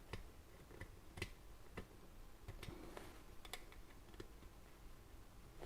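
Faint, irregular small clicks and taps of fingers handling a microSD card on the circuit board.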